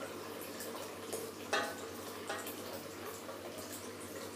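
Hot water tap running steadily into a sink, with a low hum under it and two light clicks about one and a half and two and a half seconds in.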